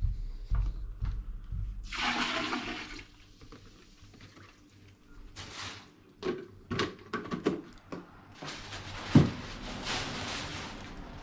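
Water poured into a plastic tub of food scraps in a few separate gushes, the longest near the end. Between the gushes come clicks and knocks of the plastic tub and lid being handled, with one sharp knock near the end.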